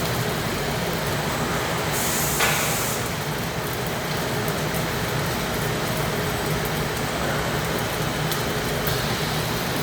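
HOMAG DRILLTEC V500 CNC wood processing centre running: a steady mechanical hum and whirr, with a brief hiss about two seconds in.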